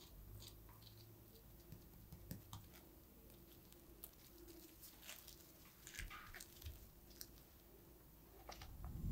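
Faint, scattered crinkles and crackles of plastic cling film being folded and pressed around a slab of chocolate truffle mixture by gloved hands.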